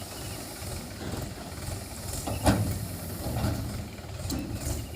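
Diesel engine of heavy machinery running low and steady, with a single sharp knock about halfway through.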